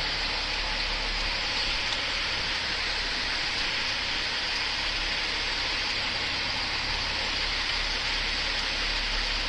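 Freightliner FLD120's Cat 3406E diesel engine running at low speed while the tractor-trailer backs slowly, heard as a steady hiss over a low rumble through a camera mounted outside the cab.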